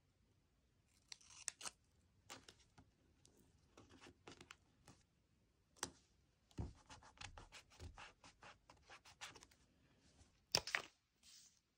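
Close paper-crafting sounds: short rustles, taps and the peel and press of washi tape and paper stickers on a journal page. There is a quick run of light ticks in the middle and one sharper click near the end.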